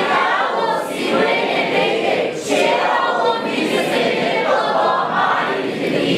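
A congregation reading a Bible passage aloud together in Burmese: many voices reciting in unison.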